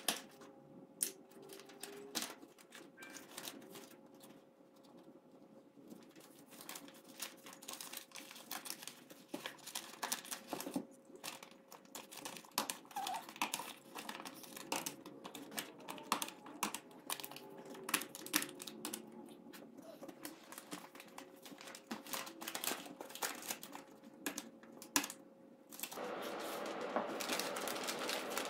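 Paper crinkling and crumpling in many quick, irregular crackles as it is pressed and shaped over a wire frame. Near the end the background gets louder and denser while the rustling of a large paper sheet goes on.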